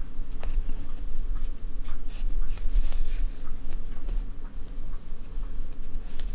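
Acrylic yarn and crocheted fabric scratching and rustling as a yarn needle draws a yarn tail through the stitches, in soft irregular strokes with small clicks. A steady low hum runs underneath.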